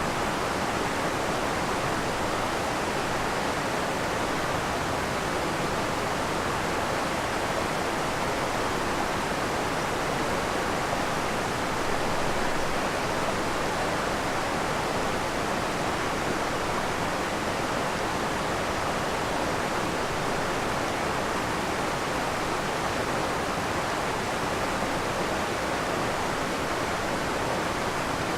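Creek waterfall: a steady, unbroken rush of falling water.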